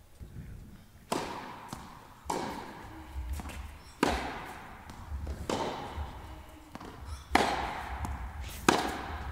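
Tennis serve and rally: about six sharp racket strikes on the ball, roughly every one and a half seconds, with softer ball bounces between them, each hit echoing in an indoor tennis hall. The last two strikes are the loudest.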